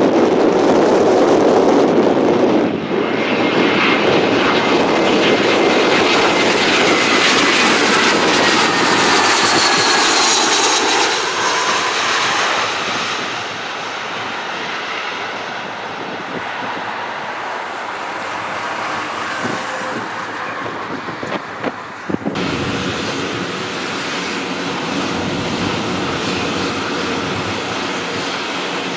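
Airbus A320 jet engines on approach: a loud rushing roar with a high fan whine that falls in pitch as the airliner passes, then a quieter, steadier jet rumble for the rest.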